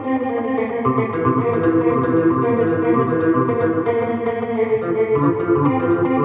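Instrumental guitar music: an effects-processed guitar picking chords and melody notes in a steady flowing pattern.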